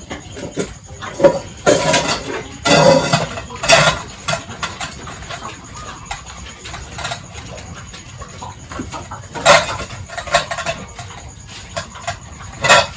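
Pigs squealing in short, loud outbursts: three close together in the first few seconds, then two more later on.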